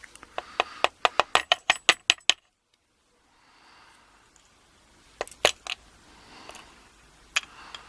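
Small metal pin-tumbler parts from a euro lock cylinder clicking and tinkling on a hard surface. A quick run of clicks speeds up and stops after about two seconds, then a few single clicks follow later.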